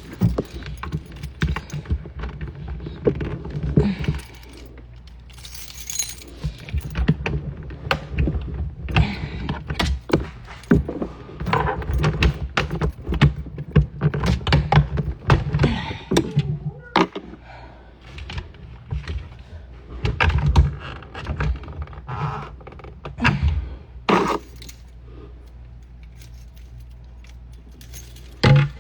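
Handling noises: rustling, clinking and clicking of objects being moved about, with scattered knocks and thuds.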